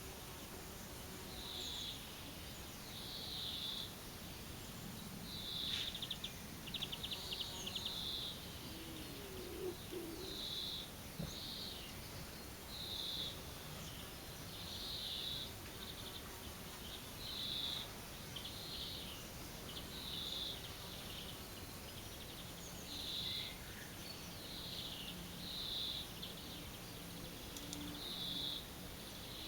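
A bird repeating a short, high call roughly once a second, steady and unchanging, over a steady outdoor background hiss.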